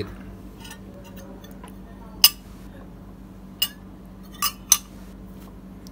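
Metal spoon clinking against a ceramic bowl while cutting and scooping a sticky rice cake: a few light taps, then one sharp clink about two seconds in and three more between three and a half and five seconds in.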